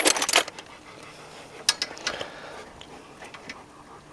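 Metal sockets clinking against each other and the tools while different sizes are tried on a brake caliper bolt: a quick run of clinks at the start, then a few scattered light clicks.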